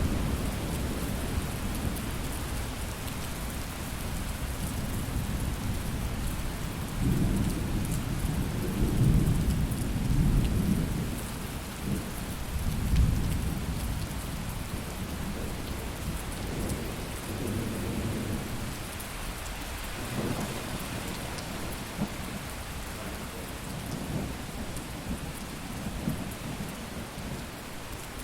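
Thunderstorm: steady rain, with low rolling thunder rumbles that build and fade several times, the strongest about a third of the way through.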